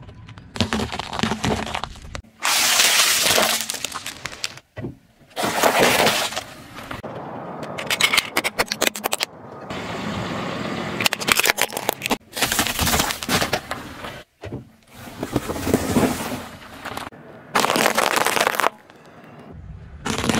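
A car tyre rolling over and crushing foil-wrapped chocolate figures, plastic PEZ dispensers and a bundle of brittle sticks on asphalt: a run of cracking and crunching sounds, each starting and stopping abruptly as one short clip cuts to the next.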